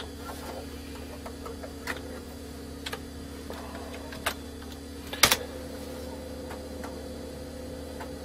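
Steady hum of an old 486 PC with a few sharp clicks of keyboard keys as a drive command is typed, the loudest about five seconds in. After it, the 5¼-inch floppy drive runs as it tries to read a disk it cannot read.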